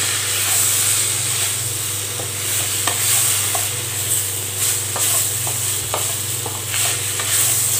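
Brinjals, tomatoes and spice powders sizzling in oil in a kadai as they are stirred and sautéed with a wooden spatula, with a few light clicks of the spatula against the pan.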